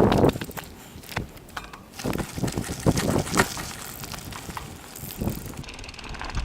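A YT Jeffsy mountain bike riding down a dirt trail: a heavy thump at the start, then a string of knocks and rattles from the bike and tyres on loose dirt, with wind on the helmet-camera microphone.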